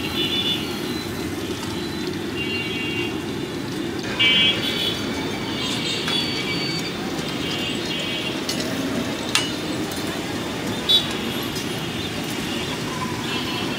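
Busy roadside ambience: steady traffic noise with several short, high horn toots, over oil frying in a large street-side wok. A few sharp metal clicks stand out, about four, nine and eleven seconds in.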